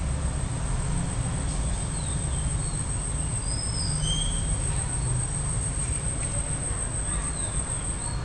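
Steady background noise: a low rumble with a constant high-pitched whine, and a few short faint chirps scattered through it.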